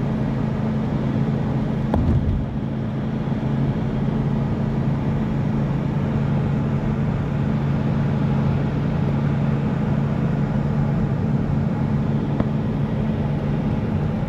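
Steady drone of a car driving along a road: engine and tyre noise, with a brief thump about two seconds in.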